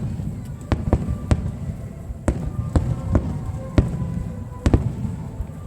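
Fireworks display: about a dozen sharp shell bursts going off at irregular intervals over a continuous low rumble of distant explosions.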